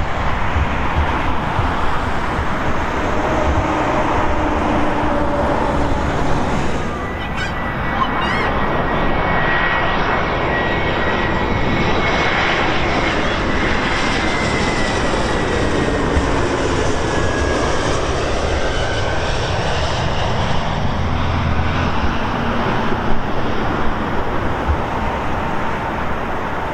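Jet airliners on final approach: first a Boeing 787-9, then, after a short break in the sound about a quarter of the way in, an Airbus A321-200 passing low overhead. Its engines run with a steady roar and a high whine, and the whine slides down in pitch as the plane goes by.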